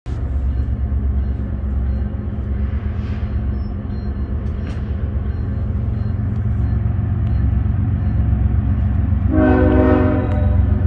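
Diesel freight locomotives rumbling steadily, with a single air-horn blast of about a second near the end.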